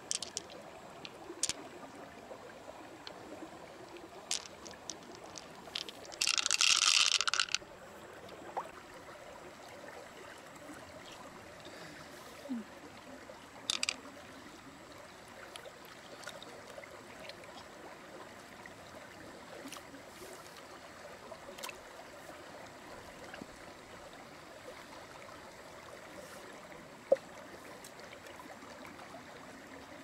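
Shallow creek water trickling steadily, with scattered light clicks and knocks as mussel shells, pearls and a knife are handled. A brief, louder hiss comes about six seconds in, and a sharp click near the end.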